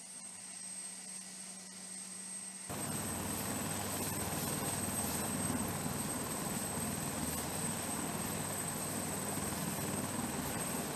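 UH-1Y Venom helicopter running on deck: its twin turboshaft engines whine steadily while the main rotor beats. About three seconds in the sound jumps suddenly much louder and stays loud.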